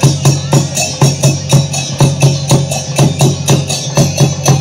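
Odia folk dance music: drums beating a quick, steady rhythm of about four strokes a second, with other instruments playing over a steady low tone.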